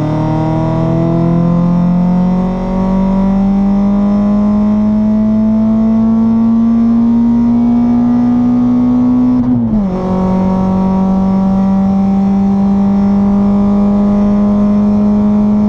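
Renault Clio RS's naturally aspirated 2.0-litre four-cylinder, on a 63 mm straight-pipe exhaust from the headers back, accelerating through a gear with a steadily rising drone. After about nine and a half seconds an upshift drops the pitch, and the engine climbs again in the next gear.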